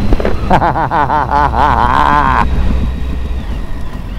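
Triumph Speed Triple's three-cylinder engine running on the move, with wind and road noise. From about half a second in, a wavering, warbling pitched sound rides over it for about two seconds and cuts off abruptly.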